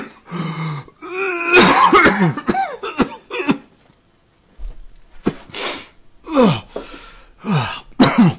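A man's coughing fit: a run of harsh, voiced hacking coughs, a second's pause, then five separate coughs spaced about a second apart.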